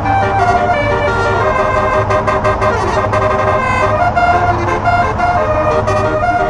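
Multi-tone 'telolet' horns on a lorry playing a tune of short held notes that step up and down in pitch, over a steady low rumble.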